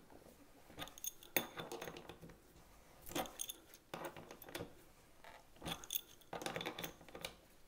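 Light metallic clicks and jingles, scattered irregularly, as a braided stainless-steel water supply line is tightened onto a dishwasher's brass elbow fitting and the hose is handled.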